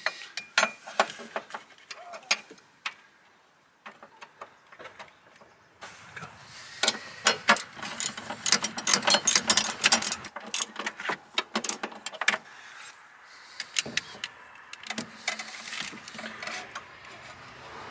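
Metal tools and parts clinking and clattering as they are handled, with scattered sharp knocks and a dense run of them near the middle.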